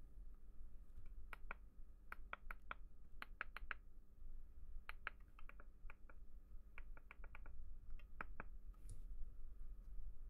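Small plastic buttons of a PocketBook 614 e-reader clicking under the thumbs, in quick clusters of two to five presses, as its menu is stepped through after the new screen is fitted.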